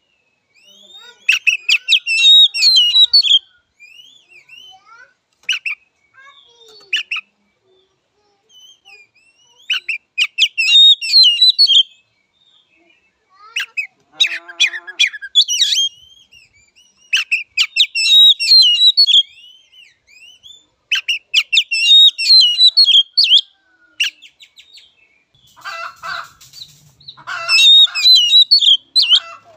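Oriental magpie-robin singing: phrases of about two seconds of rapid, varied whistles and trills, repeated with short pauses.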